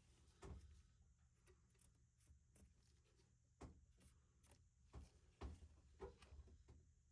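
Near silence broken by about five faint, scattered clicks and knocks of tools and parts being handled while a washer's drain pump is taken out.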